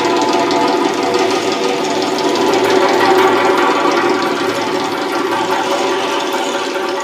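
Darbuka (goblet drum) played solo in a fast, dense roll, the strokes running together over a steady ring.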